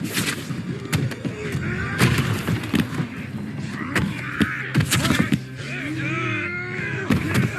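Fight-scene sound effects: a series of heavy punch-like impacts and thuds a second or two apart, with strained vocal sounds between them over background music.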